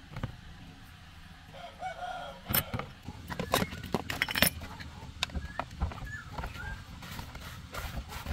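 Sharp metallic clinks and knocks of tools and motorbike parts being handled, bunched together in the middle, with a few short wavering animal calls in the background.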